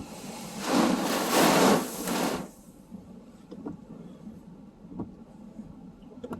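A storm wave crashing against a seawall: a loud rush of breaking water and spray starting just under a second in and lasting about two seconds, then falling back to a lower wash of surf with a few faint ticks.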